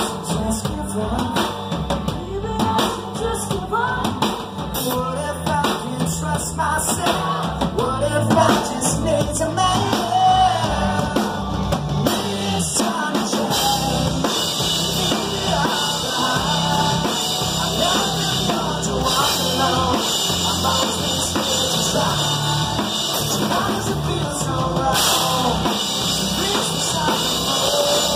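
Live rock band playing: drum kit, electric guitar and sung vocals through the PA.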